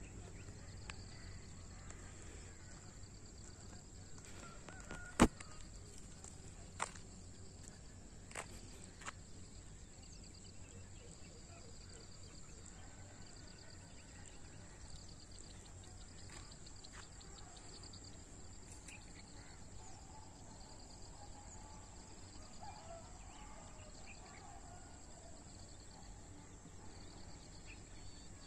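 Rural field ambience: a steady low background noise with insects chirping in a high, evenly repeating pulse. A few sharp clicks come between about five and nine seconds in, the first the loudest.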